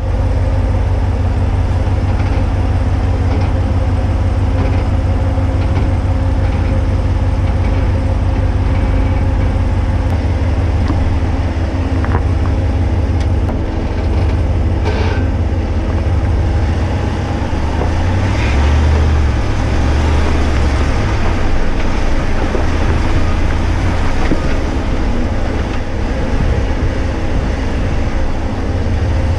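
2019 Ram 1500 Rebel pickup driving an off-road trail: a steady, heavy engine and drivetrain rumble, with a few short knocks about halfway through.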